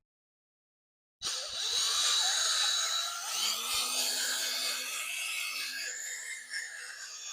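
A power drill spinning a polishing ball against a plastic headlight lens to apply plastic polish. It is a steady whirring whine with scrubbing, starting suddenly about a second in.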